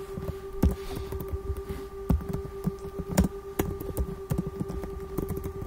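Computer keyboard typing: irregular key clicks, several a second, some louder strokes, over a steady background hum.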